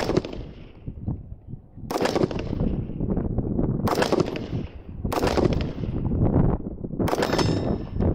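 AR-15 rifle firing 5.56 M855 rounds one at a time: five shots spaced one to two seconds apart, each trailing off over about a second.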